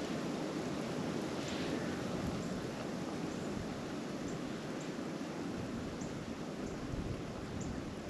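Steady blizzard wind, an even rushing noise with a low rumble, with a few faint light ticks scattered through it.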